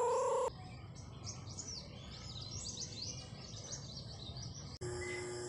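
Small birds chirping outdoors: a fast, busy chatter of short high chirps. It breaks off abruptly near the end, where a steady held tone begins.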